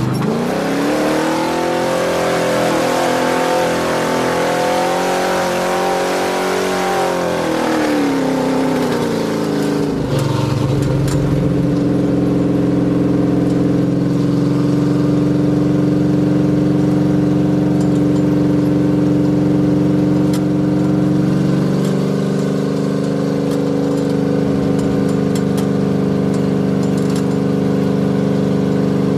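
Off-road race vehicle's engine running steadily at high revs, its pitch falling about eight seconds in as the revs drop. From about ten seconds in it settles into a lower, steady run.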